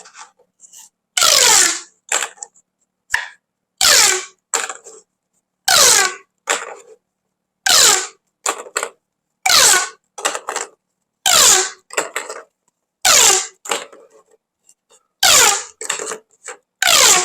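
Corrugated plastic pop tubes being stretched and pushed back again and again, about once every two seconds: each pull gives a short zipping, ratcheting sound that falls in pitch, followed by a few small clicks of the ribs.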